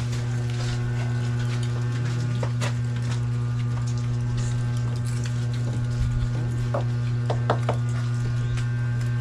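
A loud steady low hum with several even overtones, with a few light clicks and knocks from people eating at a table over it.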